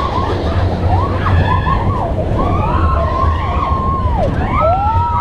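Mine-train roller coaster running fast along the track: a loud low rumble, with riders letting out long wavering whoops that rise and fall in pitch, one swooping down and back up near the end.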